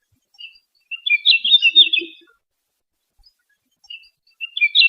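Red-flanked bluetail singing: a short, high warbled song phrase about a second in, and the next phrase starting near the end.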